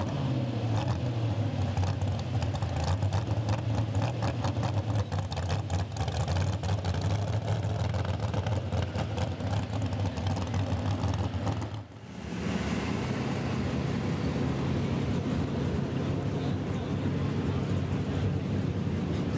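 Pickup-based pulling truck's engine running loud and steady through open exhaust stacks. About twelve seconds in the sound cuts off abruptly and another pulling truck's engine takes over, running steadily at a slightly lower pitch.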